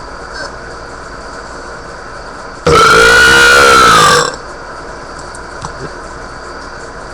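A person's long, loud burp, one pitched belch about a second and a half long starting about two and a half seconds in, its pitch rising slightly then falling. It is loud enough to overload the webcam microphone.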